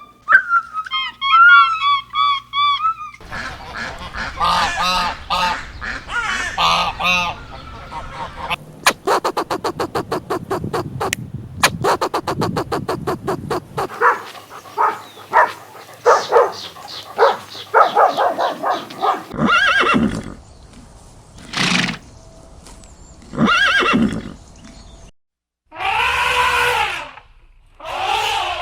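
A run of different animal calls changing every few seconds, with music underneath at times. It opens with a warbling tone, then pitched calls, a long stretch of rapid even clicking, and short separate calls towards the end.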